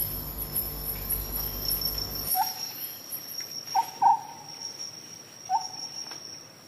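Crickets or similar insects chirring in a steady high trill, with a few short calls in the second half. A low rumble underneath cuts off about two seconds in.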